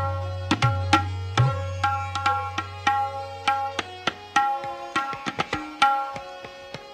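Tabla playing: a fast run of sharp, ringing strokes on the treble drum (dayan) over a long, resonant bass note from the bayan, which dies away about four seconds in.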